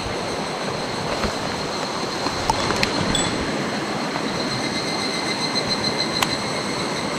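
Steady rushing of a mountain stream's flowing water, with a few light clicks about two and a half to three seconds in and again about six seconds in.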